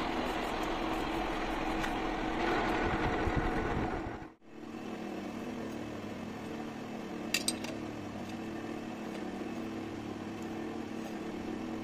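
Metal lathe running with a steady mechanical hum. About four seconds in the sound breaks off and a quieter steady hum follows, with two sharp clicks a few seconds later.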